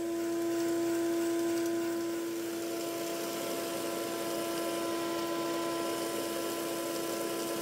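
Shop machinery running steadily: a constant motor hum with one steady mid-pitched tone over a light rushing noise, easing slightly about two seconds in.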